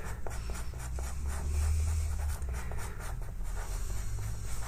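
Pastel pencil scratching across textured pastel paper in many short, quick shading strokes.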